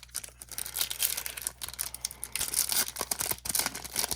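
Foil wrapper of a trading card pack crinkling and tearing as it is opened, a dense run of crackles.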